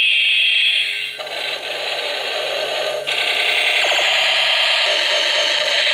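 Battery-operated light-up toy planes running together, their built-in speakers playing loud, tinny electronic sound effects and music over a plastic rattling. The sound pattern switches abruptly about a second in and again about three seconds in.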